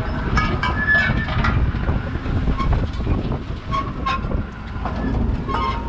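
Fishing boat's engine and net-hauling roller running: a steady low rumble with scattered clanks and short squeaky notes.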